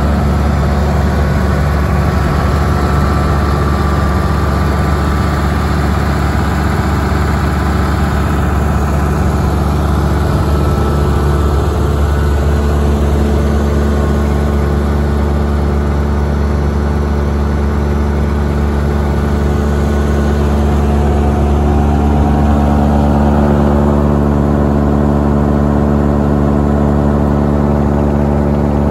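Ford-New Holland 8670 tractor's six-cylinder diesel engine running steadily, turning a New Holland F62B forage blower through the PTO shaft. The sound is loud and even, with no change in engine speed.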